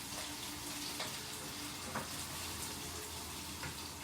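Onions frying in a pan with a steady sizzle, and a few light scrapes as they are stirred.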